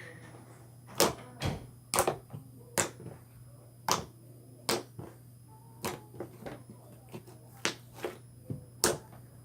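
Buttermilk slime being squeezed and worked by hand, giving a series of sharp, irregular clicks and pops, about one or two a second.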